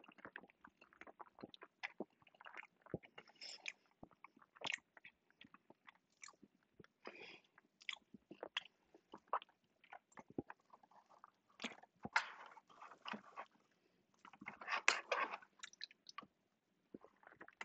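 Close-miked chewing of soft chocolate banana bread: a string of wet mouth clicks and smacks at an uneven pace, with a few denser bouts of chewing partway through.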